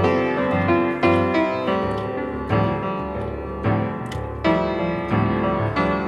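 Background piano music, a gentle melody of separate struck notes.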